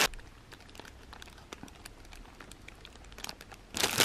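Clear plastic bags of packaged squishy toys crinkling faintly, with light scattered crackles. Near the end a hand grabs the bags and sets off a loud burst of crinkling.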